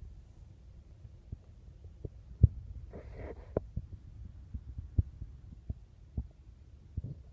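Strong wind buffeting the microphone: a low rumble with irregular thumps from the gusts, and a brief rush of higher noise about three seconds in.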